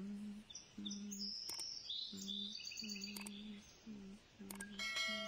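A wasp's wings buzzing in short bursts, a low hum that starts and stops every half second or so. Birds chirp in the background. A bright bell-like chime rings out near the end.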